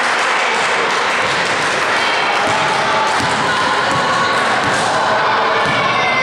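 Steady echoing din of an indoor volleyball game in a gym hall: players' voices and a few dull thuds of the ball being played.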